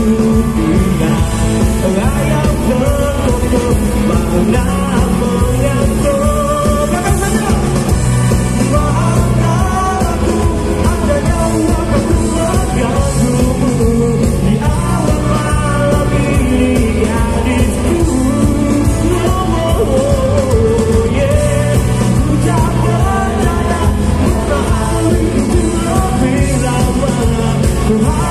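A live rock band with a large backing ensemble plays, with electric guitars, bass and drums, while a male lead singer sings into a microphone. It is recorded from within the crowd.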